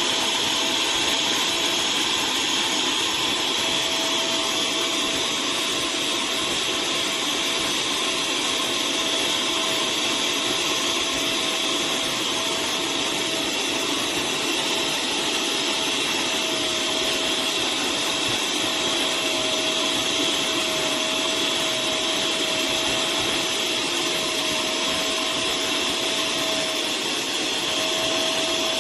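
Livatro 600 W upholstery wet vacuum cleaner running steadily, its suction motor giving a constant rushing hiss with a thin steady whine.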